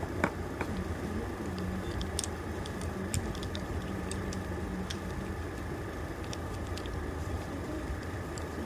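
Chalk being crunched and snapped, giving scattered sharp crunches and clicks at irregular intervals, the loudest just after the start and about three seconds in, over a steady low hum.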